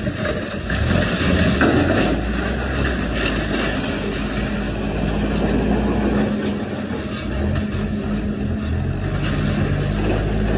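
Doosan crawler excavator with a rotating crusher chewing through an airliner's aluminium nose section: a steady diesel engine note under continuous crunching, tearing and clattering of metal.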